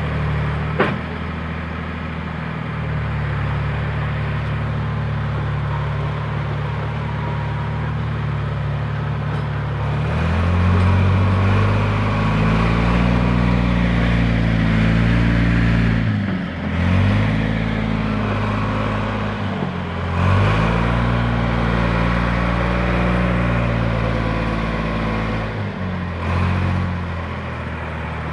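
John Deere backhoe engine running steadily at low revs, then brought up to higher revs about ten seconds in. The engine speed dips briefly three times before it drops back down near the end.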